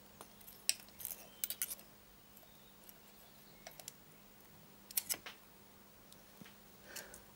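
Light metallic clicks and clinks of a steel feeler gauge being handled and its blades fed into the gap between rocker arm and valve while the exhaust valve clearance is set. The clicks come in small clusters about a second in and again about five seconds in, with one more near the end.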